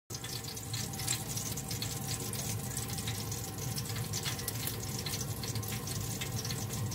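Pork slices sizzling on a grill, a steady hiss full of fine crackles and pops of spitting fat, over a steady low hum.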